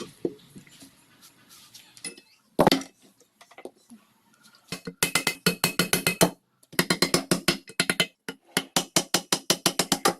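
A single heavy knock, then three runs of rapid sharp taps at about seven a second, filling the second half.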